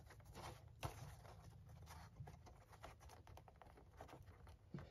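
Near silence with faint small clicks and rustles of fingers handling a scrap of cardboard packaging, one slightly louder tick about a second in.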